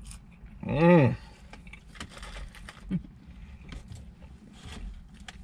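A pleased closed-mouth "mmm" about a second in, its pitch rising and then falling, followed by faint scattered clicks and rustles of people eating French fries.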